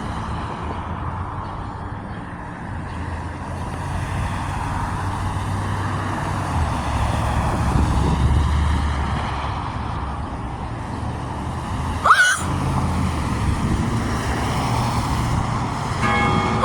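Street traffic: steady road noise with a passing vehicle's low rumble that swells around the middle and fades. A brief sharp squeak sounds about twelve seconds in.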